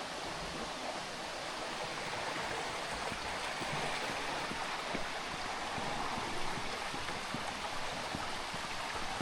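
Steady rush of flowing water, an even unbroken noise.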